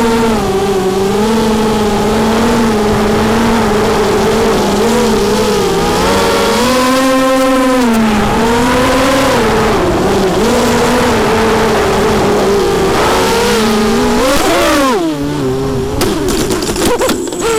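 Four Cobra 2204 2300KV brushless motors on a small FPV racing quadcopter whining, the pitch rising and falling with the throttle. There is a higher pull about seven seconds in and a quick swoop up and down about fifteen seconds in. After that the sound turns lower and rougher, with a few ticks.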